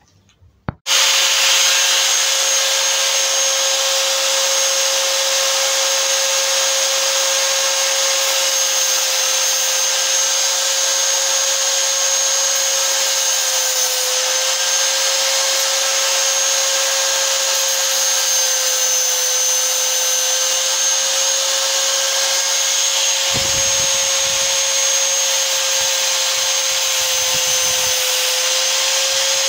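Electric angle grinder starting up about a second in, then running with a steady high whine as its cut-off disc cuts through a thin metal gas pipe.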